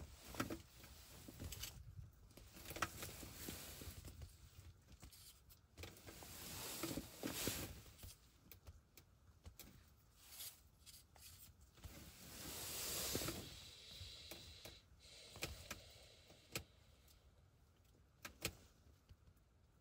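Faint rustling with scattered light clicks, and two longer swells of hiss, one about a third of the way in and a longer one a little past the middle.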